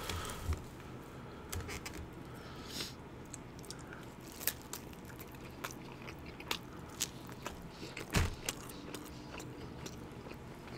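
Close-miked eating: a man biting and chewing food, with many small wet mouth clicks and soft crunches. One louder low knock about eight seconds in.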